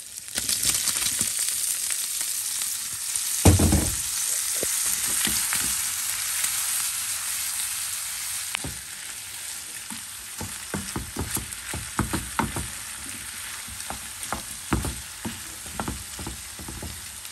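Diced pancetta frying in a pan sizzles loudly as broccoli pieces are tipped in, with a thump about three and a half seconds in. The sizzle gradually settles while a wooden spoon stirs, knocking and scraping against the pan.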